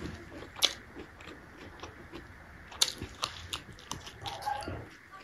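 Close-up eating sounds: a mouthful of stir-fried bamboo shoot being bitten and chewed, with wet smacking and sharp clicks of the lips and mouth.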